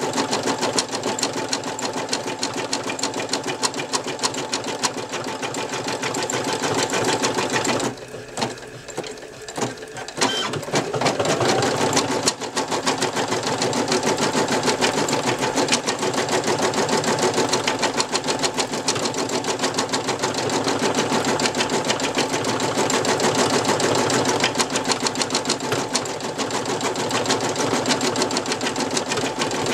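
Brother NV2600 computerized embroidery machine stitching, a fast steady run of needle strokes. About eight seconds in it pauses for a couple of seconds with a few clicks as it moves on to the next section of the design, then starts stitching again.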